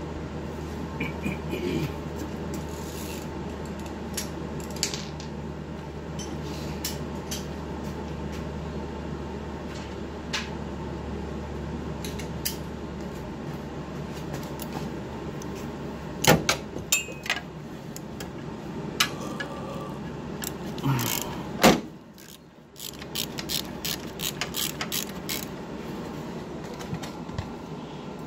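Metal hand tools clicking, clinking and knocking at scattered moments as fasteners and a shield are worked loose under a car. A few louder knocks come in the second half, over a steady low hum that stops about halfway through.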